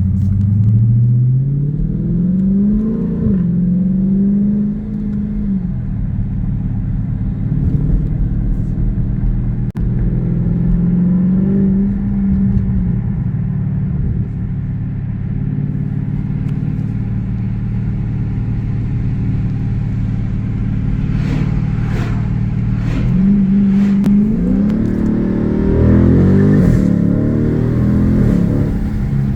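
Car engine and aftermarket aFe exhaust heard from inside the cabin, accelerating several times: the engine note climbs, holds, and drops back between pulls, with the longest climb near the end.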